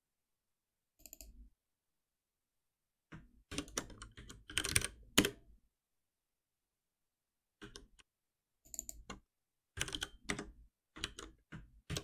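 Computer keyboard typing in short flurries of keystrokes separated by pauses, as code is edited and keyboard shortcuts are pressed; the loudest flurry comes about five seconds in.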